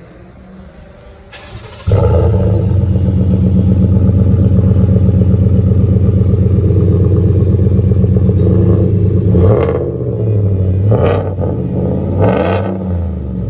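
Ford F-150's V8 breathing through a Roush cat-back exhaust: cranked and caught about two seconds in, then running loud and steady. Near the end it is revved in three quick blips, each rising and falling in pitch.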